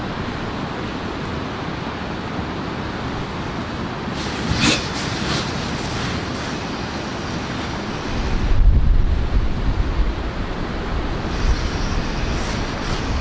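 Wind blowing over the microphone as a steady rush, with a heavy gust buffeting it about eight seconds in. There is a brief sharp noise a little before the middle.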